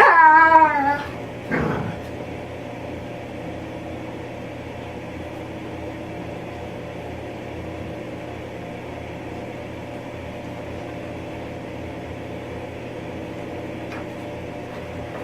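A pet's short warbling vocal noise with a wavering pitch in the first second, and a brief sound just after, then a steady low hum for the rest.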